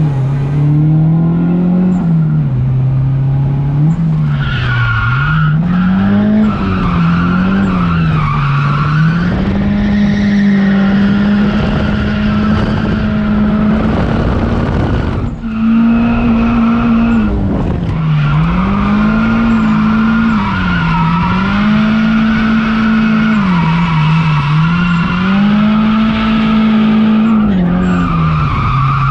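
Turbocharged SR20DET four-cylinder in a Nissan 240SX, heard from inside the cabin, revving hard while drifting: the engine note climbs and falls every second or two with the throttle, holds high for a few seconds in the middle, and drops out briefly about halfway through, with tyres squealing underneath.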